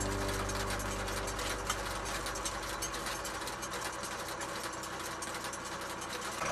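Tractor engine running steadily under a fast, even mechanical clatter from the towed seedling transplanter as it lays mulch film and plants.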